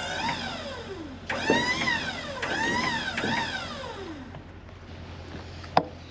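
Background music led by a twangy electric guitar, with bending, sliding notes, fading out about four seconds in. A single sharp knock near the end.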